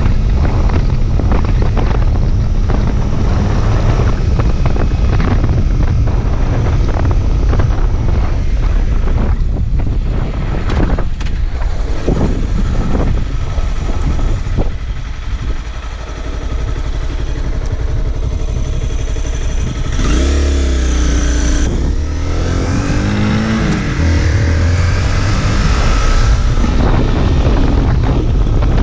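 Sport motorcycle engine under way with heavy wind noise on the microphone. It eases off and goes quieter a little past halfway, then accelerates through the gears, the engine pitch rising in two sweeps with a shift between them.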